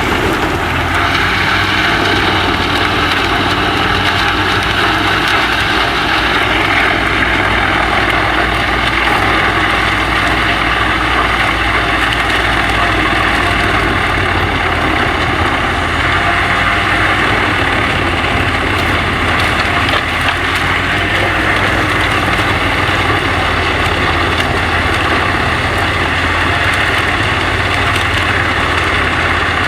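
Wood chipper running steadily under engine power, a continuous loud machine drone with no marked changes.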